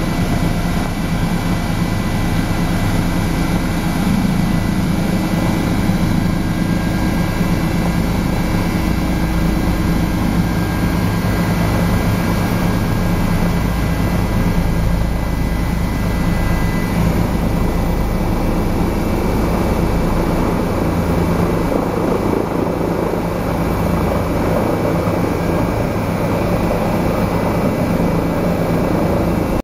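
Helicopter turbine and rotor running steadily on the approach to landing, a constant loud drone with a low, even beat.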